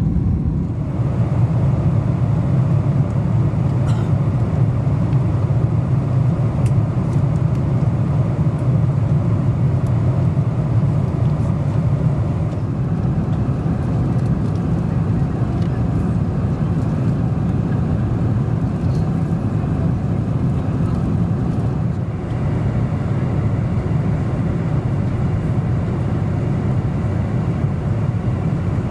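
Steady low rumble of cabin noise aboard a Boeing 747-400 airliner: engine and airflow noise heard from inside the passenger cabin.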